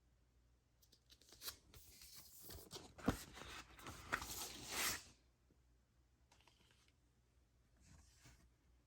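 Record packaging being handled: about four seconds of crinkling and tearing with sharp clicks, then two brief softer rustles.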